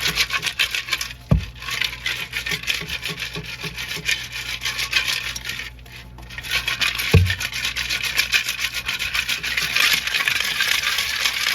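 Coarse salt pellets rattling and grating inside a truck fog light housing as it is shaken back and forth to scour mud off the inside of the lens, with two short pauses and a couple of dull thuds.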